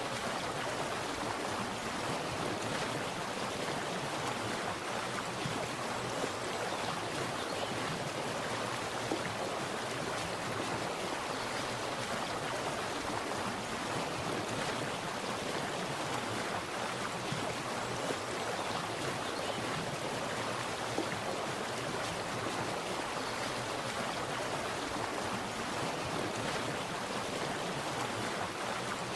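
Water splashing and running steadily in a stream, a continuous even rush without breaks.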